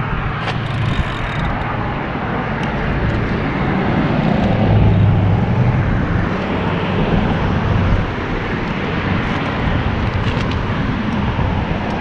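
Road traffic passing on the neighbouring highway bridge, a steady rumble with a low hum that swells about five seconds in as a vehicle passes and eases off near the end.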